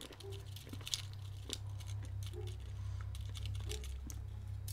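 Scattered faint clicks and rattles of small hard mints and their plastic packaging being handled, over a steady low hum.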